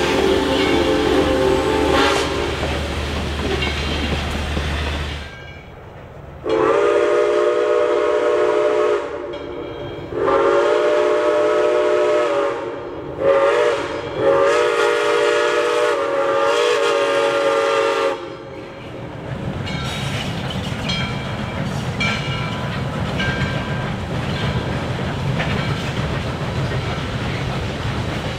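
A Southern Railway steam locomotive's chime whistle blows the grade-crossing signal of long, long, short, long as the train approaches a road crossing. After the last blast the coaches roll through with a steady rumble and clickety-clack of wheels on rail joints. Before this, for about the first five seconds, the locomotive and tender pass close by until the sound cuts off.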